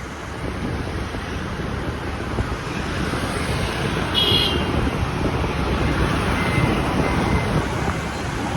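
Steady road traffic noise with wind rushing over the microphone, growing louder over the first few seconds. A short high tone sounds once about four seconds in.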